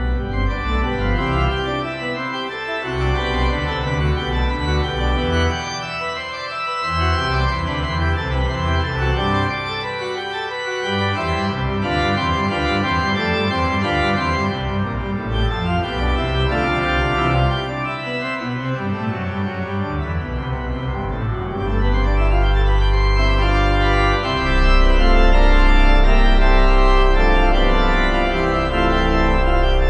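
Organ music: sustained chords changing slowly, with deep pedal bass notes entering about two-thirds of the way through and the music growing louder near the end.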